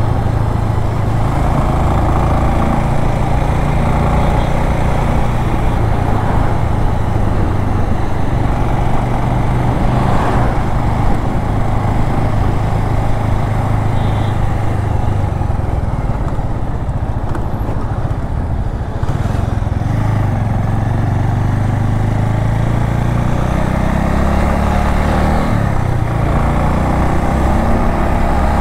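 Single-cylinder engine of a Bajaj Avenger Cruise 220 motorcycle running under way through hill corners, its note shifting in pitch a few times with the throttle, over steady wind and road noise.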